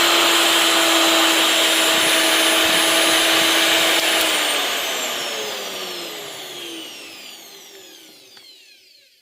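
Bauer 3-inch corded cut-off tool running free at full speed with a steady high whine, then switched off about four seconds in and winding down in pitch to a stop over the next five seconds. It spins smoothly, without bad vibration.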